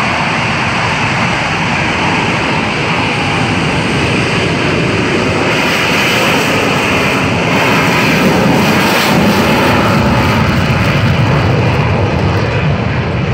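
Blue Angels F/A-18 Hornet jets' engines running loud on the runway as the team takes off, a steady roar that swells a little past the middle.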